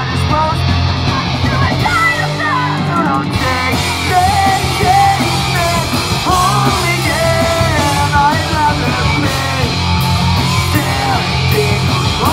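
Punk rock band playing live: a singer singing and yelling over electric guitars, bass and drums.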